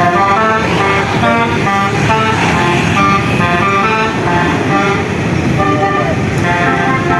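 Basuri telolet musical bus horn playing a tune: a quick run of short, stepped notes with several pitches sounding together, going on without a break.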